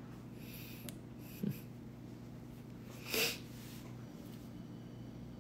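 Quiet room tone with a steady low hum; about three seconds in, one short breath through the nose.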